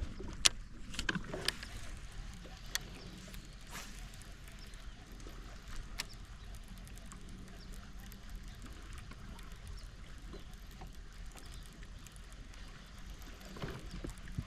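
Quiet boat ambience: a steady low hum with scattered light clicks and taps, several in the first few seconds and one sharp tick about six seconds in.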